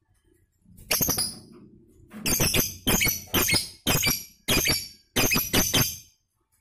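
Lovebird chirping in sharp, high calls: a short cluster about a second in, then a run of about eight chirps, roughly two a second, that stops near the end. It is a newly trapped bird starting to sing steadily (gacor).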